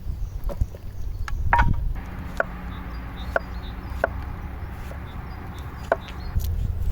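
Four sharp knocks, spaced about a second apart, over a steady low rumble.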